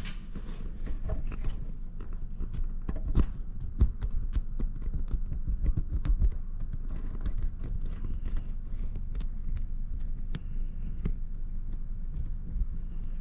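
Irregular light clicks and knocks from handling wiring and multimeter test leads, over a steady low rumble.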